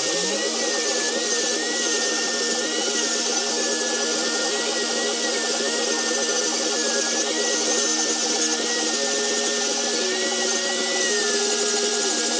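Electric angle grinder spinning up, its pitch rising over the first half second, then running steadily while grinding a metal knife blank held in a vise.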